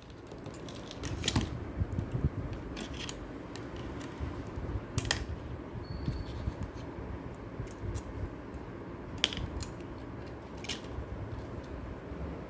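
Light metallic clicks and scrapes at irregular intervals as a nut and bolt are tightened on the metal strips of a Mechanix construction kit.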